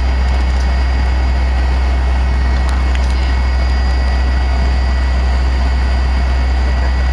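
Cabin noise of a Fokker 100's rear-mounted Rolls-Royce Tay turbofans running at a steady low power: a heavy, even drone with thin steady whines above it, not rising in pitch or loudness.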